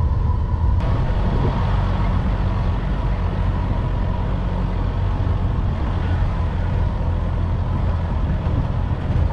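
Open safari jeep driving on a dirt track: a steady low engine rumble with road and body noise from the vehicle, heard from inside the open cab.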